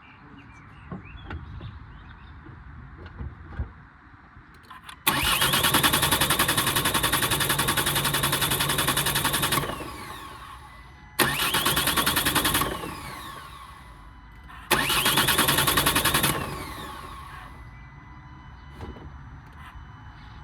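Starter motor cranking a 2011 Ford Galaxy's 2.0 TDCi diesel three times without it firing: one long crank of about four and a half seconds, then two short ones, each winding down when released. This no-start is typical of air getting into the fuel through a split fuel filter housing, which the owner thinks is the cause.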